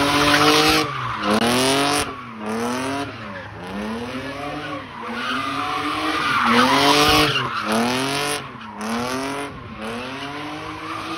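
Car doing donuts: its tires screech as they spin and slide, while the engine revs up and falls back over and over, about once a second.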